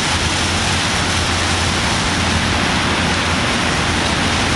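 Electric hair clippers running steadily as they shave a head down to the scalp: a constant low buzz under an even hiss.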